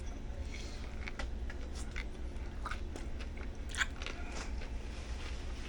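A person chewing a mouthful of Subway ham sub close to the microphone: scattered small wet clicks and soft crunches of chewing over a low steady hum.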